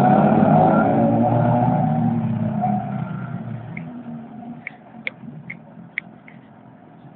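Two motorcycles pulling away and riding off, their engines loud at first with the pitch rising and falling, then fading over about four seconds until faint. A few short, high chirps come in the second half.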